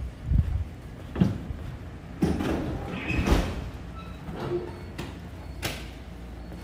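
City street ambience: a steady low traffic rumble with several short sharp clatters and knocks.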